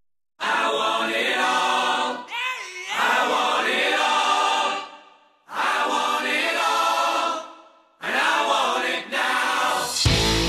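Soundtrack music: voices singing in a choir-like style, in three long phrases with short breaks between them. Near the end a new track with electric guitar cuts in.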